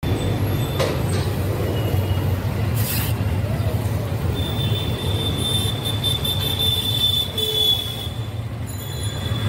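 Street traffic noise: a steady low rumble, with a thin high squeal held for about three seconds in the middle.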